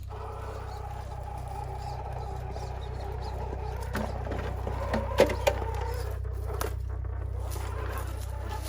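Electric drive motor and gearbox of an RC scale rock crawler whining steadily under low crawling load. A few sharp knocks and clicks come about four and five seconds in, the loudest a pair just after five seconds.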